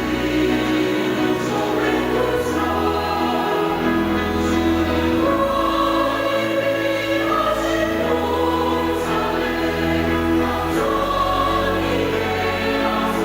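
Church choir singing a hymn in harmony, with sustained chords that change every few seconds.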